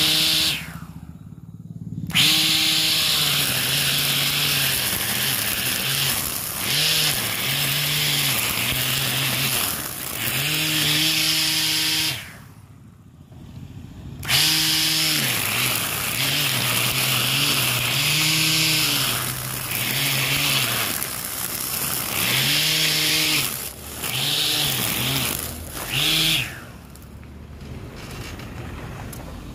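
Cordless battery grass trimmer spinning plastic trimmer line through grass: a motor whine with a hissing swish of line on grass. The motor is run in spells, spinning up and winding down, with a short stop about a second in and another around the middle, and it drops off near the end.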